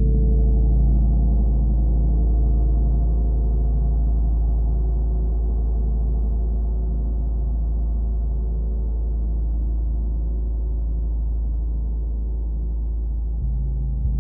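40-inch Wuhan feng (wind) gong ringing in a sustained, shimmering wash of many overlapping overtones over a deep, steady low hum. The sound eases slowly, then swells slightly again near the end.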